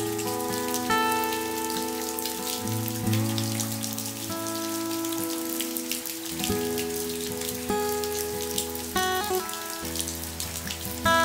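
Summer monsoon rain falling steadily, many separate drops ticking, under soft background music of slow held notes that change about every second.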